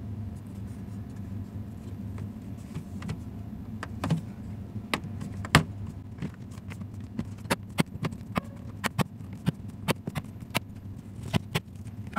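Sharp plastic clicks and snaps as a laptop's bottom cover is pressed back on and its clips seat, starting about four seconds in and coming irregularly, about one or two a second, over a steady low hum.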